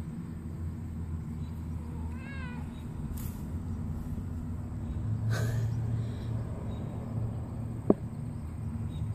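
A small kitten meowing: one rising-and-falling meow about two seconds in and a shorter cry about five seconds in, over a steady low hum. A single sharp click near the end is the loudest sound.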